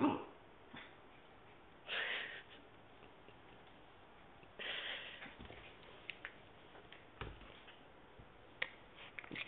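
Papillon dog playing close up without barking: two short breathy, rustling sounds, about two seconds in and again near five seconds, followed by a few light ticks.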